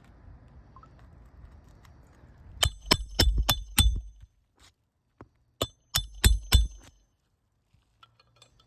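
Hammer striking a roof snake to drive roofing nails back into a shingle: two quick runs of about five and then four blows, each with a short metallic ring.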